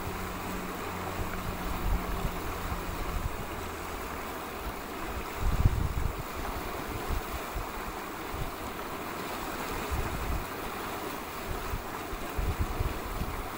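Wind buffeting the microphone in uneven low gusts over a steady hiss of moving air and river water. A faint low hum fades out about three seconds in.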